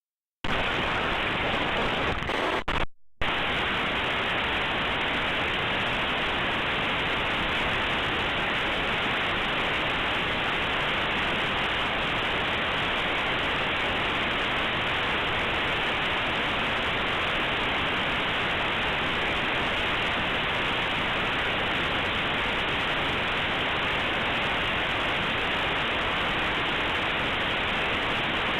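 Steady, even static hiss: the bytes of a compressed Linux kernel image played as raw audio through aplay, whose near-random data sounds like white noise with no treble. It starts about half a second in and drops out briefly about three seconds in.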